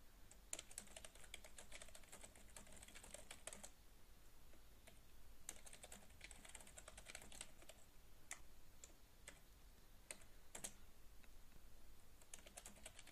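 Faint typing on a computer keyboard: quick runs of keystrokes broken by short pauses, with a few single keystrokes between the runs.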